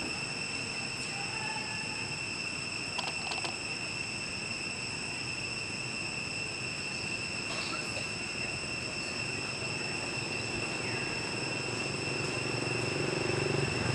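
Insects buzzing in the forest: a steady, unbroken high-pitched drone, with a couple of faint clicks. A low rumble grows near the end.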